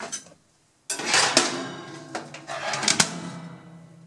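Severin toaster oven's wire rack scraping and rattling as it slides back in, then the glass door clacking shut about three seconds in. A low steady hum rings on after.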